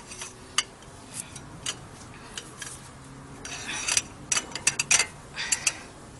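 Metal clicks and clinks from a socket ratchet with a steel pipe slipped over its handle, worked against a tight 17 mm brake caliper bracket bolt. The clicks come singly at first, then in quick clusters in the second half.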